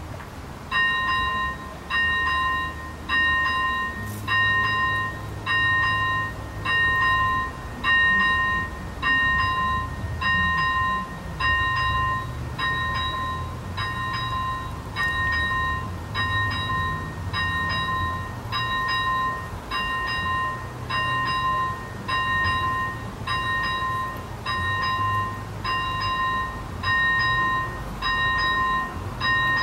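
ZV-01 electronic level-crossing bell on an AŽD 71 crossing signal, starting about a second in and then striking steadily about once a second with a bell-like ding and several overtones: the crossing is activated, warning of an approaching train.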